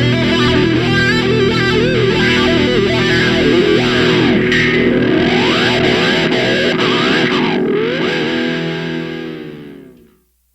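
Background rock music with distorted electric guitar, fading out near the end.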